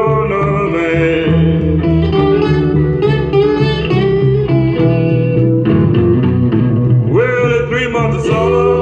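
A 45 rpm record playing through a 1951 RCA Victor J-2 record changer, a Fisher CA-40 tube amplifier and an Electro-Voice Baronet speaker. It is a song with a singing voice and guitar over a steady bass line.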